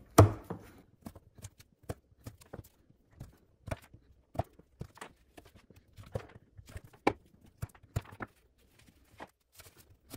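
Civivi Imperium folding knife cutting through bungee cord, plastic tubing and denim against a pine 2x4. A string of sharp knocks from the blade striking the wood, about one or two a second, the first the loudest.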